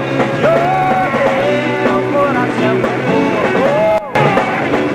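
A man sings a rock song live with a band, with guitar and a steady bass line. The sound drops out for a split second about four seconds in.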